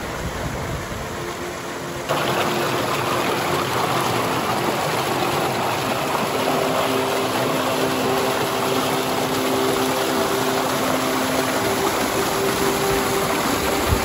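Small waterfall cascades on a mountain brook: steady rushing, splashing water that gets louder about two seconds in.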